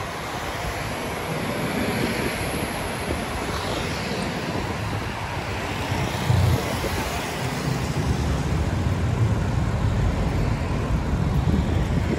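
Road traffic rumbling past, with wind buffeting the microphone of a moving bicycle; a brief louder low bump comes about halfway through.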